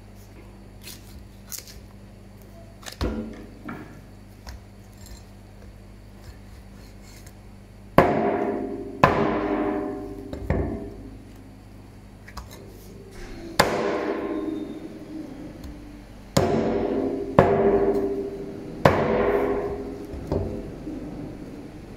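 A heavy meat cleaver chopping bone-in wild boar meat on a plastic cutting board. Seven hard strikes come in the second half, each followed by a metallic ring from the blade that fades over about a second. A lighter knock comes before them, about three seconds in.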